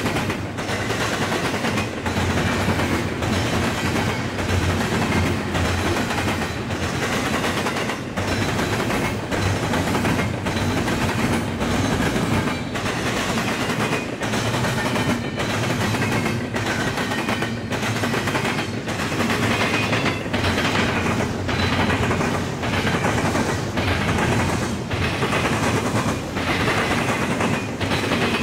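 Double-stack intermodal freight train rolling past at speed, its steel wheels clattering over the rail diamond and joints in a steady repeating rhythm under a continuous rumble of rolling cars.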